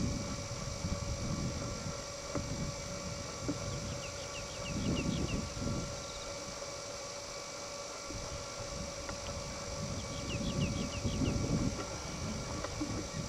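Wind buffeting the camcorder microphone in irregular low rumbling gusts, over a faint steady camera hum. A bird gives a quick run of high chirps about four seconds in and again about ten seconds in.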